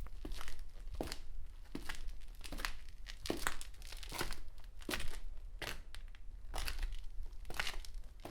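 Footsteps walking at an even pace, about two steps a second, each step a short scuffing strike.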